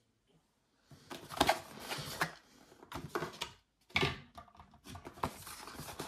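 A white cardboard product box being handled and opened by hand: cardboard scraping and rubbing, with a few light knocks, starting about a second in.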